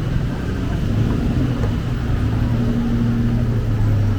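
City street traffic with a steady low engine hum from a nearby vehicle, which starts about a second in and cuts off suddenly at the end.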